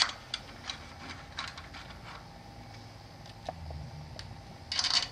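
Small metal screws clicking and scraping as they are fitted and turned by hand into the hub of a Max-Prop two-blade feathering propeller, with short louder bursts of handling noise at the start and again near the end.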